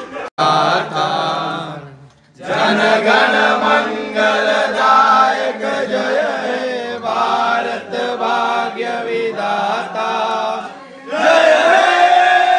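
A group of voices chanting or singing together in unison, with a brief pause about two seconds in.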